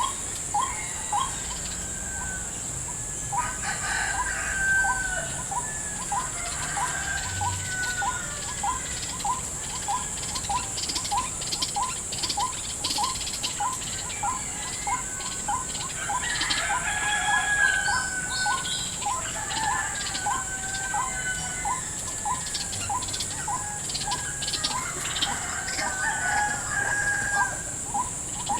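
White-breasted waterhens (ruak-ruak) calling: an even run of short notes about two a second, with louder gliding cries over it now and then. A constant high insect buzz runs underneath.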